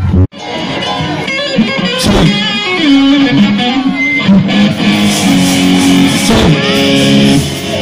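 Amplified electric guitar being played during a stage sound check: held single notes and short riffs. The sound cuts out briefly just after the start.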